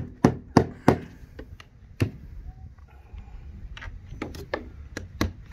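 Hammer driving nails through the nailing hem of a vinyl siding panel into the wall: sharp blows a few a second, a pause of about a second and a half around the middle, then a second run of blows near the end.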